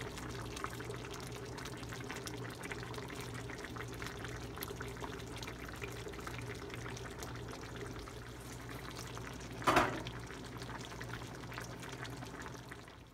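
Chicken curry simmering in a pan: a soft, steady bubbling over a low hum, with one brief louder sound about ten seconds in.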